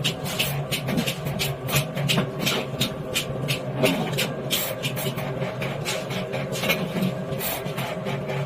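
Metalwork on an iron pan: quick, irregular scraping and knocking strokes, several a second, over a steady machine hum.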